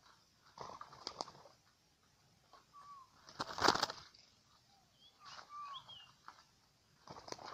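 Spotted dove's wings flapping in four short bursts, the loudest about three and a half seconds in, with a few brief bird calls between them.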